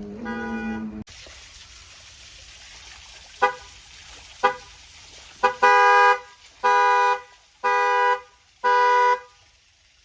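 Car alarm pulsing a car's horn. Horn blasts end abruptly at a cut about a second in; after a pause come two short toots, then the horn honks about once a second, the last four blasts longer.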